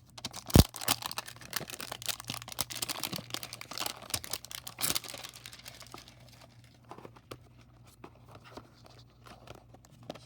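A trading card pack wrapper being torn open and crinkled, with a sharp snap about half a second in. Dense crinkling for the first six seconds, then fainter, sparser rustles.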